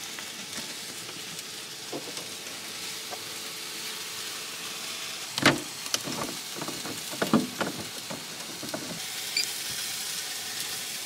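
Food sizzling steadily on an iron teppanyaki griddle, with a sharp knock about halfway through and a few lighter clicks of utensils on the plate after it.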